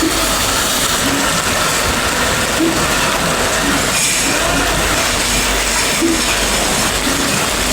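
Steady running noise of a train in motion: continuous rumble and rattle, with short faint tones recurring about once a second.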